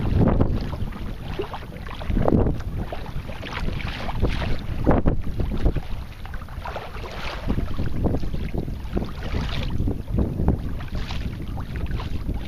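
Wind buffeting the camera microphone in uneven gusts, with small waves splashing against the kayak hulls.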